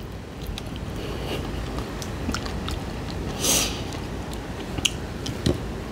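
Close-up chewing of bone-in fried fish, with scattered small crunching clicks and a short crackle about three and a half seconds in.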